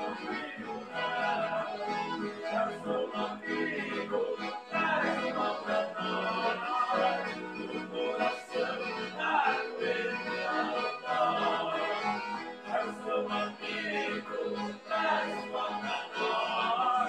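Live gaúcho-style band music led by two accordions playing the melody together, backed by electric guitar and strummed acoustic strings, with a man singing into a microphone.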